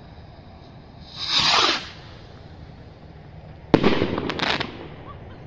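Setti Fireworks Rocket Selection rocket: a short whoosh as it climbs about a second in, then a sharp bang as it bursts a little before four seconds in, followed by two quicker reports as it fades.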